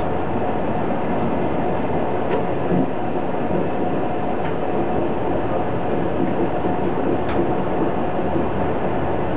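Uerdingen-type railbus (Danish Y-train) running along the track, heard inside the driver's cab: a steady running noise of its underfloor diesel engine and wheels, with a few faint clicks.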